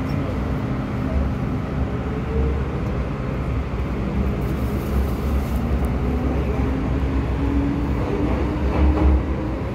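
MTR M-Train running through a tunnel, heard from inside the car: a steady low rumble of wheels on rail, with a motor whine that slowly rises in pitch over the last few seconds.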